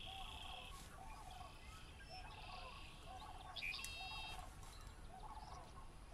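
Wildlife calling around a spring marsh: short, rippling low calls repeat about once a second, with higher drawn-out trills and a few sharp chirps above them.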